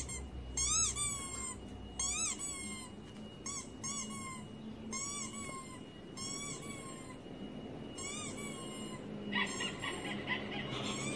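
Squeaky-toy squeaks played from a recording through a laptop speaker. The short rubber-toy squeaks each rise and fall in pitch and come in small clusters about once a second. A rougher, denser sound joins them near the end.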